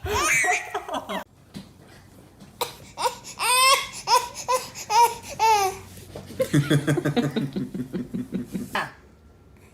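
A baby laughing in a string of short, pitched bursts, followed by a lower-pitched pulsing laugh.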